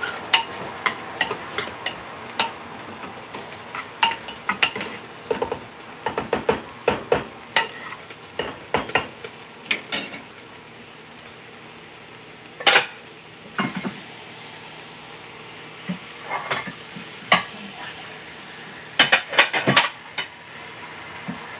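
A metal spoon stirring and scraping in a steel cooking pot, with irregular clinks and knocks against the metal, over a steady sizzle of frying. There is a quieter stretch about halfway through, then one sharp knock, and a quick cluster of clinks near the end.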